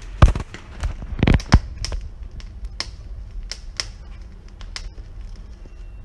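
Corn on the cob crackling and popping as its kernels char over a gas burner flame: irregular sharp pops, the loudest in the first two seconds, then smaller ones scattered through, over the low steady rush of the flame.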